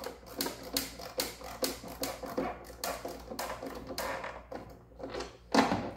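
Screwdriver working the small servo mounting screws in an RC boat's wooden radio box: a run of light, irregular clicks and taps, several a second.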